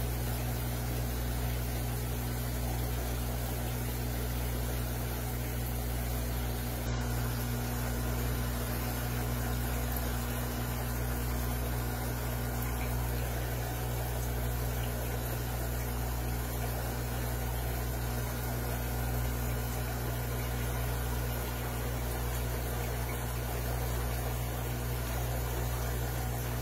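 Aquarium pump running: a steady low hum over an even hiss of moving water.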